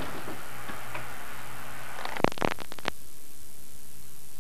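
Steady hiss and hum of a home camcorder tape recording, with a quick run of clicks about two seconds in. The room sound then cuts out, leaving only a quieter, even tape hiss as the recording stops.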